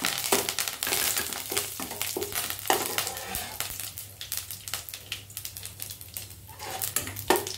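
Curry leaves, mustard seeds and urad dal sizzling and spluttering in hot oil in a kadai as they are stirred with a metal slotted spoon. It is loudest at the start, when the curry leaves hit the oil, then settles to scattered crackles.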